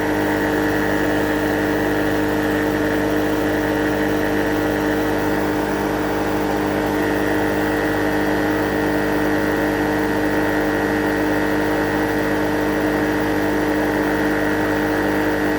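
Refrigerant recovery machine running steadily, its compressor and fan making an even hum. It is pushing liquid refrigerant into an air-conditioning system to charge it.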